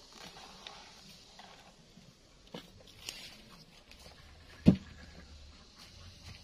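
Light clicks and taps from hands working on a chainsaw that is switched off, with one sharp knock a little past the middle.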